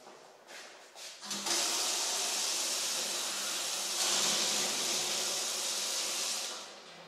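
Water running from a kitchen mixer tap into a stainless steel sink: a steady hiss that starts about a second and a half in and fades out shortly before the end.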